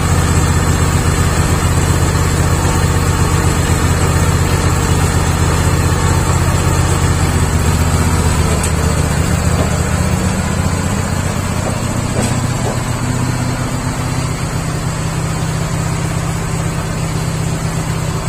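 Sawmill running as it saws a log face: a steady machine hum with a thin, high, steady whine above it. About halfway through, the low hum thins out and the level eases slightly.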